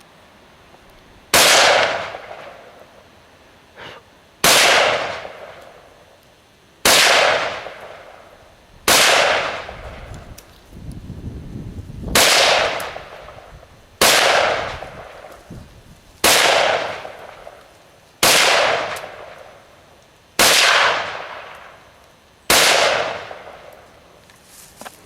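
Ten rifle shots from a semi-automatic rifle, fired at a slow, even pace about two seconds apart, each crack followed by a long echoing tail.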